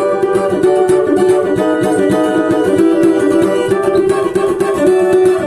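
Cavaquinho strummed with quick, steady strokes, its chords ringing throughout.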